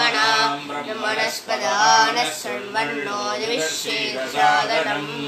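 Voices singing a Hindu devotional chant, a slow melodic line with long held notes.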